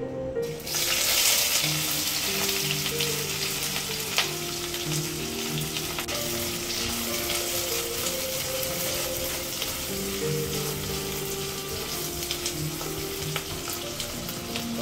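Chopped red onions hitting hot oil, sizzling about a second in and frying steadily as they are stirred with a spatula. Background music plays underneath.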